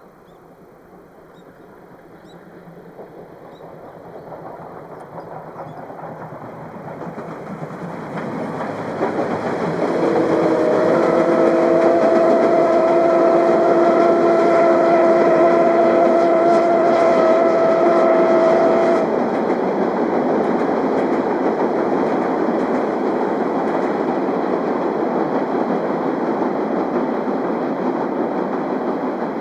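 A passing train, the C57-180 steam locomotive and its coaches, on a railway bridge, growing loud over the first ten seconds as it approaches, with a rumbling clatter of wheels that then runs on steadily. In the middle a steady multi-note tone sounds for about nine seconds and cuts off suddenly.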